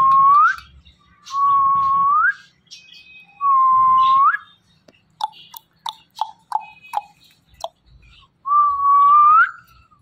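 Indian ringneck parakeet whistling: four long whistles, each a steady note that flicks upward at the end, with a run of short sharp chirps between the second and third quarters.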